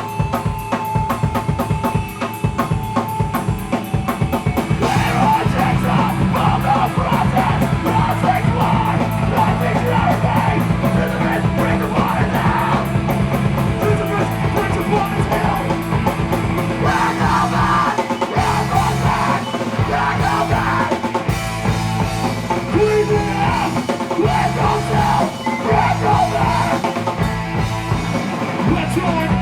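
Live rock band playing loud and fast, with a drum kit pounding quick beats under heavy distorted guitar and bass chords.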